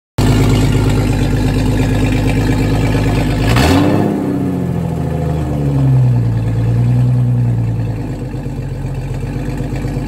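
1998 Jeep Wrangler TJ's 4.0-litre inline-six engine running, revving up sharply about three and a half seconds in and easing back down, with a smaller rise near seven seconds. The engine runs now that a blown fuse has been replaced.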